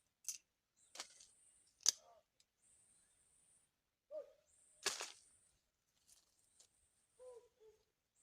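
Short, low, downward-bending bird calls, four of them spread through the clip, mixed with four sharp clicks or snaps; the loudest snap comes near the middle.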